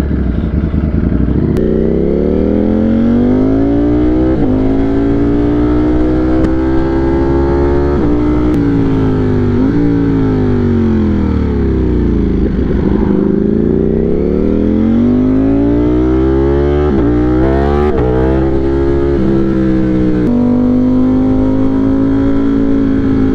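Ducati Streetfighter V4 engine pulling away from a stop about a second and a half in and accelerating hard up through the gears, its pitch climbing and dropping back at each quick upshift. Midway the revs fall and climb again, then a burst of rapid shifts leads into a steady cruise, heard through the action camera's own microphone.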